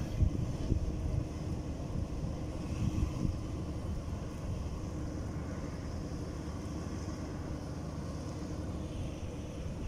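Wind buffeting the microphone at the water's edge, a steady, uneven low rumble.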